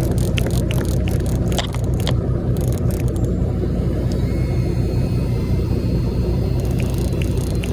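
Fishing boat's engine running steadily with a low rumble, with scattered short clicks in the first two seconds and again near the end.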